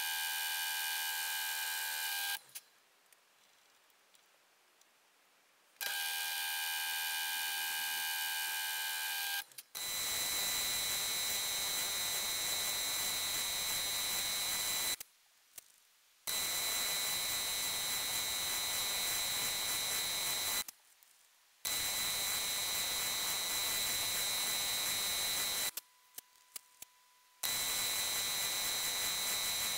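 Milling machine spindle drilling into an aluminium cylinder: a steady machine whine with several fixed high tones. It cuts off and starts again abruptly four times, and its tones change after about ten seconds as the spot drill gives way to a twist drill.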